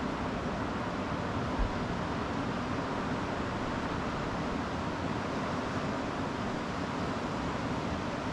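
River water flowing over rocks: a steady, even rush, with a brief low thump about one and a half seconds in.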